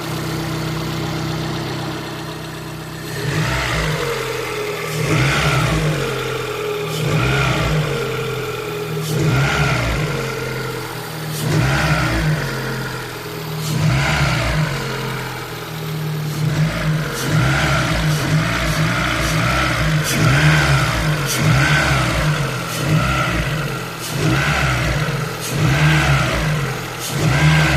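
Lada Kalina 11194 engine idles steadily, then is blipped repeatedly, its pitch rising and falling every second or two. It is being revved to show extraneous noises that appear when the throttle is blipped, and faint clicks can be heard through it.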